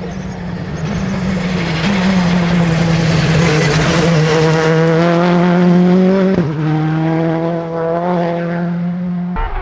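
Porsche 992 GT Rally car's engine at high revs under hard acceleration, pitch creeping up, with a brief break about six seconds in like a gear change. It grows louder toward the middle and eases after, then the sound changes abruptly near the end.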